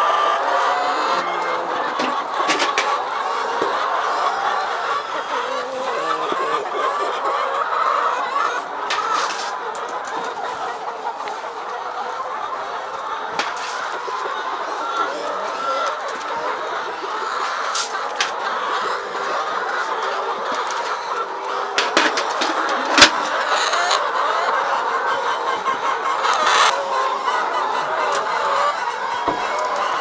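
A large flock of layer hens clucking and calling continuously while they crowd in to feed, with a few sharp clicks among them, the loudest about 23 seconds in.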